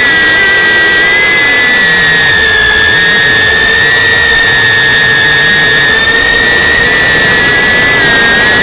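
Quadcopter drone's propellers whining steadily and loudly, close to the drone's own microphone, the pitch wavering slightly as it holds and moves.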